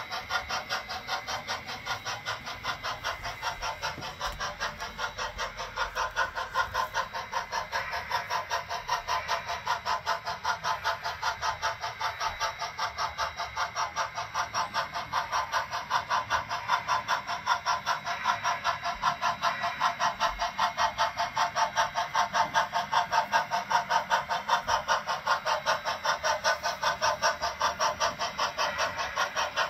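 On30 model steam locomotive running, with a steady, even chuffing of simulated steam exhaust at about four chuffs a second.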